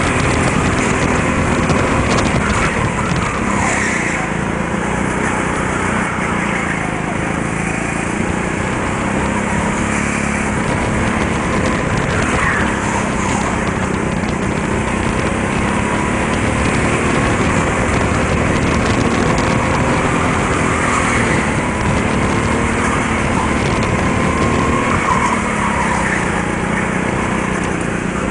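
A go-kart's small engine running hard, heard from the driver's seat, its pitch rising and falling over and over as the throttle opens on the straights and eases for the corners.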